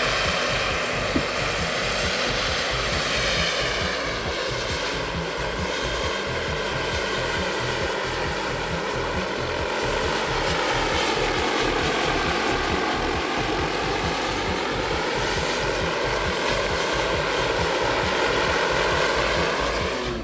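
Radio-controlled scale model helicopter flying with a sling load, its rotor and engine making a steady, dense noise whose pitch drifts slowly up and down.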